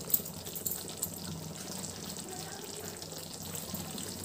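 Thick butter chicken gravy simmering in a pan on a low flame: a soft steady hiss with a few faint pops of bubbles.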